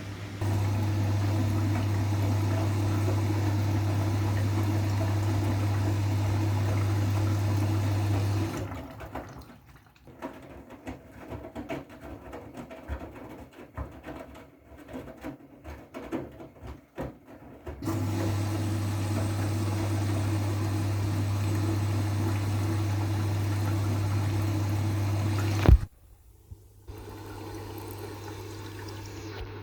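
Siemens washing machine moving water during its wool/delicate programme: a steady electric hum with rushing water runs for about eight seconds, gives way to quieter sloshing and light knocks in the drum, then comes back for another eight seconds and stops with a sharp click.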